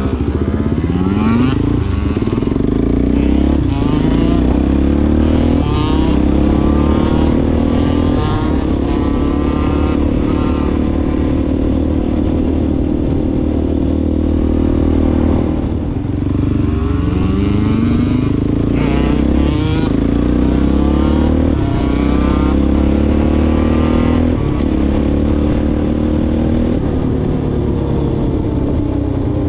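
Off-road vehicle engine being ridden, its pitch repeatedly climbing as the throttle opens and then dropping back, over and over, with a short easing off a little past halfway.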